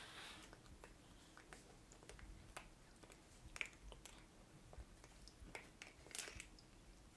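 Faint scattered clicks and small crunchy taps of a Maine Coon cat's teeth biting and mouthing long plastic claw-shaped false nails.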